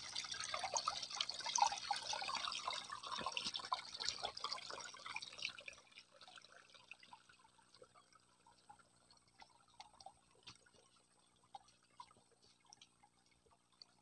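Shallow stream trickling and gurgling over rocks and stones. About six seconds in it drops to a faint trickle with scattered small ticks and drips.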